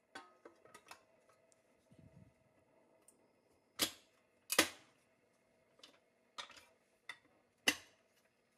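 Pressed-steel toy truck cab being handled and seated onto its metal chassis: a string of light metallic clicks and knocks with a brief low scuff, then three much louder sharp clacks.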